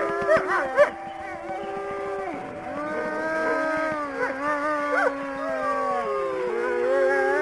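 A pack of wolves howling in chorus: several long, overlapping howls that slide up and down in pitch, with a few short yips in the first second.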